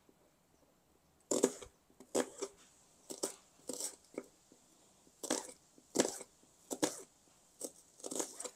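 Kitchen knife slicing an onion on a cutting board: about a dozen separate short cuts, irregularly spaced at roughly one or two a second.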